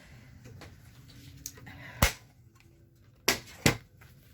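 Three sharp clicks: one about two seconds in, then two close together near the end.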